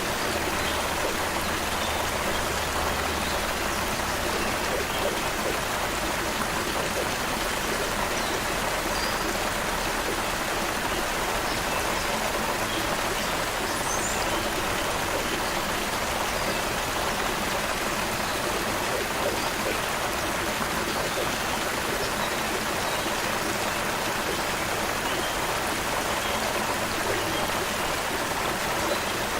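Creek water flowing steadily, an even rushing splash, with a few faint high bird chirps in the background.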